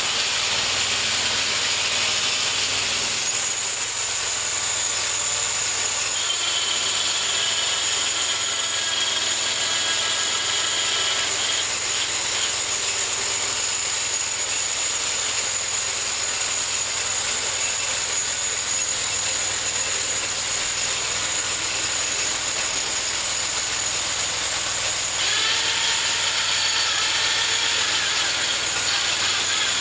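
Homemade bandsaw mill running steadily as it saws through a cherry log. A higher whine joins twice, from about six to twelve seconds in and again near the end.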